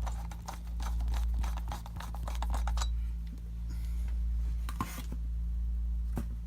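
Rapid crackling and crinkling of the plastic protective piece being pulled off the base of a CPU cooler, stopping about three seconds in, followed by a couple of small ticks. A steady low electrical hum runs underneath.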